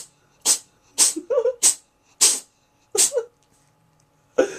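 A cat sneezing over and over in quick succession: about eight short, sharp sneezes, roughly two a second at first and then further apart.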